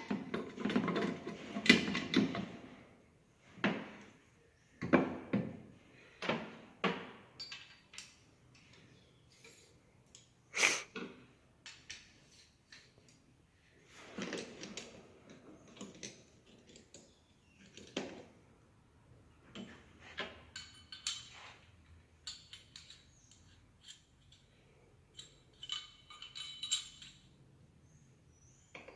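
Metal parts of a Ford Fiesta manual gearbox clinking and knocking as they are handled and fitted together during assembly: irregular separate clinks and knocks, busiest in the first two seconds.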